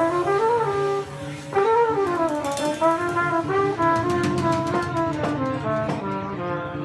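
Small jazz band playing live: a flugelhorn carries a slow, gliding melody over plucked double bass, vibraphone and drums, with cymbal strokes from about two seconds in.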